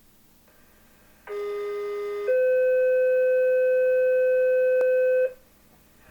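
Two-tone sequential fire pager alert from a radio receiver: a lower tone held for about a second, then a slightly higher tone held for about three seconds, which cuts off abruptly. It is the dispatch tone that sets off the county fire department's pagers for the test call.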